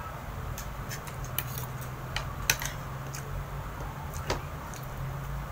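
Spoon and fork clinking and scraping on a plate of rice while eating: a few sharp clicks scattered through, one about halfway in the loudest, over a steady low hum.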